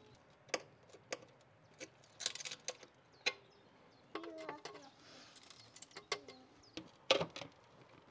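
Pliers chipping and nibbling at rough stone at the edge of a window opening to make room for a glass pane: scattered sharp clicks and small cracks at irregular intervals, with a brief squeak a little past four seconds in and two louder clicks near the end.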